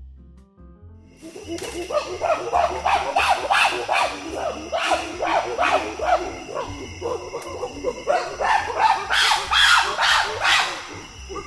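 Rapid, overlapping short animal calls, several a second, starting about a second in and fading just before the end, over background music.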